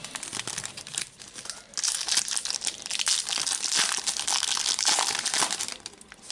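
Foil wrapper of a Panini Adrenalyn XL trading-card packet being torn open and crinkled by hand: light rustling at first, then a dense crackle from about two seconds in that dies away near the end.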